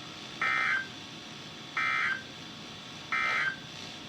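Three short bursts of the EAS/SAME end-of-message data tone from NOAA Weather Radio, a harsh two-tone digital warble, evenly spaced about a second and a half apart over steady radio hiss. The bursts signal the end of the weekly test broadcast.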